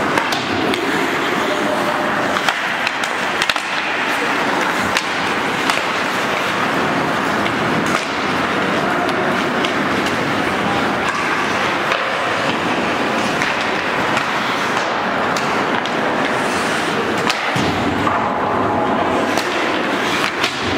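Ice hockey play on an indoor rink: skate blades scraping the ice over a steady hiss, with frequent sharp clacks of sticks and puck scattered throughout.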